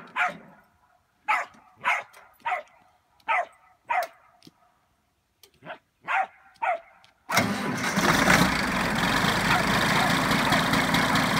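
A string of short calls, each falling in pitch, with quiet between them. About seven seconds in, a Cummins diesel converted into an International 1256 tractor fires suddenly on a cold start in 24-degree weather, then settles into a loud, steady run.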